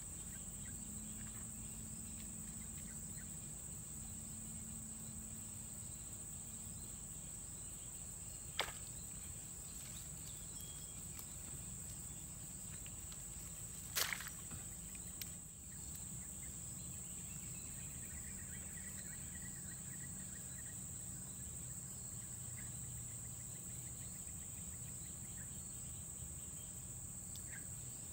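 Steady, high-pitched insect chorus buzzing without a break, with two short sharp knocks, the louder one about halfway through.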